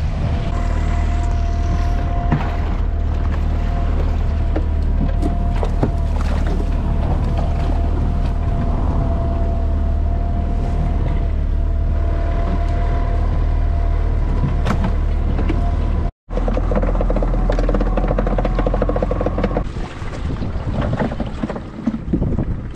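Outboard motor of a small fibreglass fishing boat running steadily under way, with water rushing past the hull. The sound drops quieter near the end.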